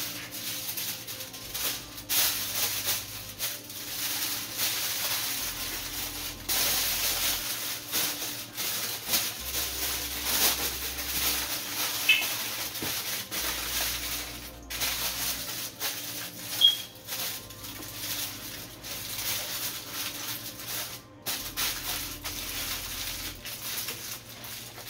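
Aluminium foil crinkling and rustling as it is folded and crimped tightly around a whole fish, with background music underneath.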